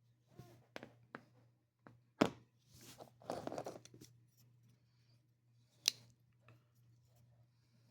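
Folding pocket knife being handled: a few light clicks, a loud sharp snap about two seconds in, a second or so of rustling and scraping right after, and another sharp click near the six-second mark.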